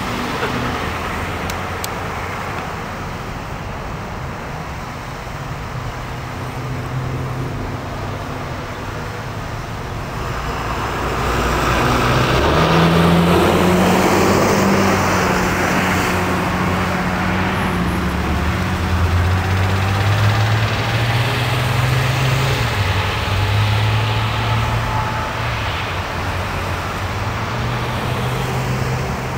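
Road traffic: cars and light trucks passing close by, a steady mix of tyre noise and engine hum that swells as vehicles go by, loudest around halfway through.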